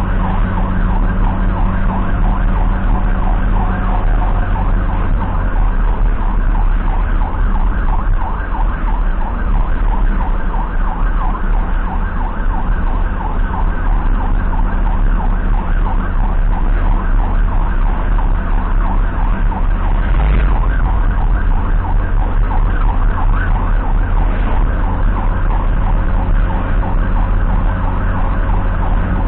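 Ambulance siren sounding a fast, rapidly repeating warble, heard from inside the ambulance over a steady low rumble of engine and road noise.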